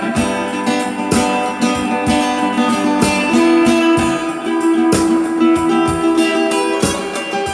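Acoustic guitar (violão) music: a melody of plucked notes over held bass notes, played continuously.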